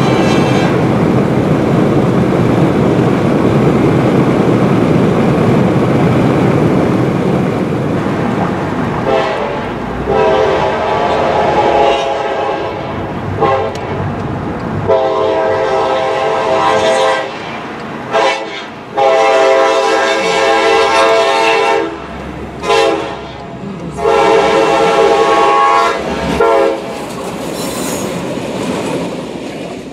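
Diesel freight locomotive's air horn sounding a series of long and short blasts, each a chord of several notes, starting about nine seconds in. Before the horn there is a steady low rumble, and the clatter of the passing train runs under the blasts.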